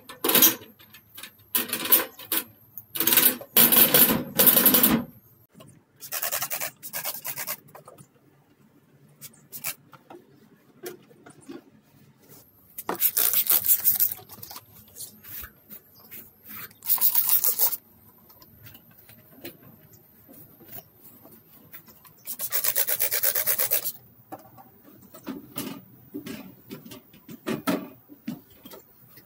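A cloth rubbing and wiping over the painted sheet-metal surface of a tool chest, in separate scrubbing strokes of one to two seconds with pauses between.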